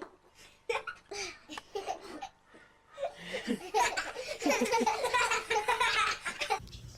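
Laughter: a few short bursts, then continuous hearty laughing from about three seconds in that cuts off suddenly near the end.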